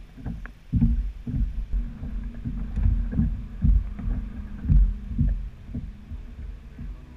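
Small waves slapping against a kayak hull, picked up by a camera mounted on the boat: a run of irregular low thumps, about one or two a second, over a low rumble.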